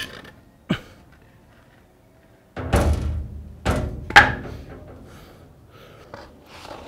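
Heavy wooden beams knocking and thudding against concrete blocks and the concrete floor as they are handled and pulled out from under a machine. Two sharp knocks come first, then a cluster of loud, deep thuds about halfway through, then a few lighter knocks.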